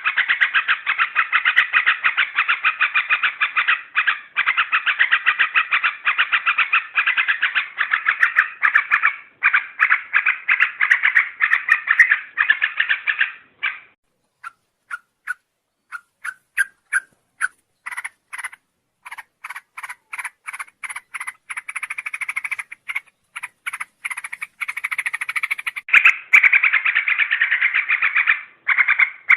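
Yellow-vented bulbuls (trucuk) calling in a rapid, bubbling chatter from a lure recording. The chatter breaks off about halfway through into separate short notes roughly twice a second, with faint high thin notes above them, then builds back into continuous chatter near the end.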